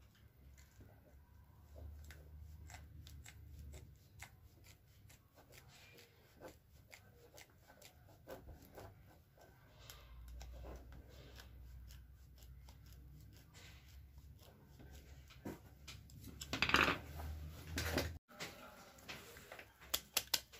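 Plastic clicks, taps and rustles from handling an electric blanket's handheld controller and its cables, with a louder scraping rustle near the end. A low hum comes and goes underneath.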